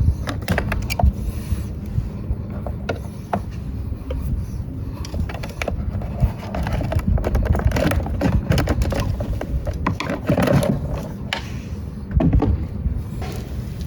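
Irregular clicks, knocks and scrapes of tools and metal or plastic parts being handled, over a steady low rumble, typical of hands at work on a moped's battery compartment.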